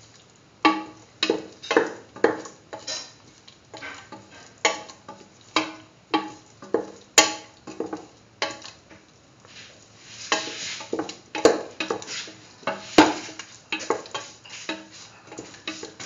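A spatula scraping and stirring a thick curry paste with bell pepper pieces around a metal pan, in repeated short strokes about one to two a second, some with a ringing edge.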